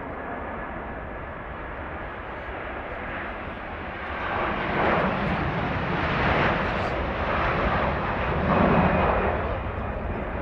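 Airbus A330-243's two Rolls-Royce Trent 700 turbofans at take-off thrust as the airliner rolls down the runway and lifts off. The roar grows louder from about four seconds in, rising and falling in waves, and eases slightly near the end.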